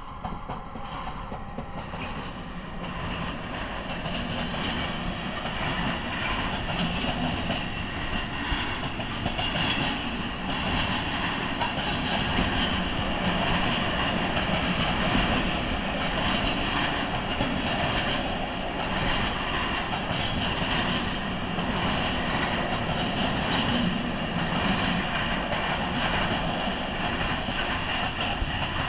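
Train running past close by, its wheels clattering over the rail joints. The sound grows louder over the first few seconds and then holds steady.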